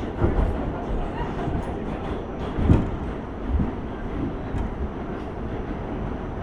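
Inside a moving subway car: steady rumble of wheels on the rails, with scattered knocks and one louder clunk under three seconds in.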